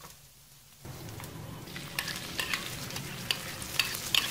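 Puréed tomato sizzling in hot oil with fried garlic and shallot in a nonstick pan, stirred with a wooden spatula that scrapes and clicks against the pan. The sizzle starts suddenly about a second in, and the spatula clicks come often in the second half.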